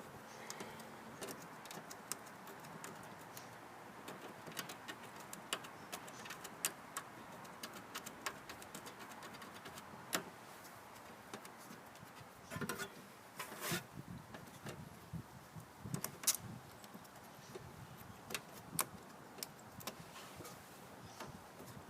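Scattered metallic clicks, clinks and scrapes of hand work on a lawn mower's underside, with a few louder knocks in the second half.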